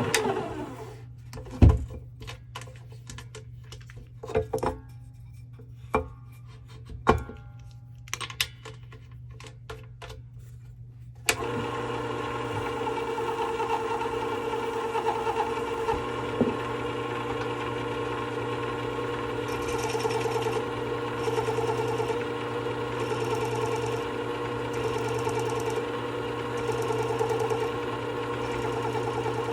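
A few knocks and clicks, then about eleven seconds in a Work Sharp WS3000 sharpener's motor switches on and runs with a steady hum. From about twenty seconds a hiss repeats about every second and a half: a chisel being ground against the abrasive on the spinning glass platen.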